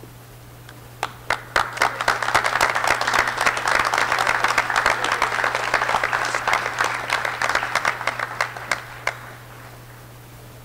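Audience applauding. A few scattered claps about a second in swell into full applause, which thins out and dies away near the end.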